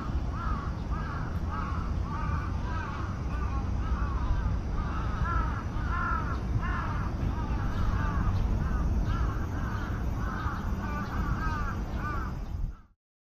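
Crows cawing over and over, about two calls a second, over a steady low background noise. The sound cuts off abruptly near the end.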